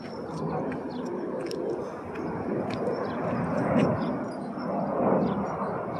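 Military jet's engine noise from overhead: a steady rushing sound.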